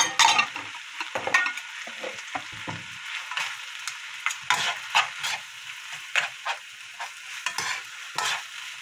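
Kimchi fried rice with diced ham sizzling in a frying pan while being stirred and turned with a plastic spoon and a metal spoon, with frequent irregular scrapes and taps of the spoons against the pan.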